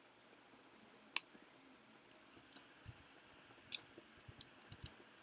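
Faint clicking at a computer: a single sharp click about a second in, another about midway, then a quick run of small clicks near the end.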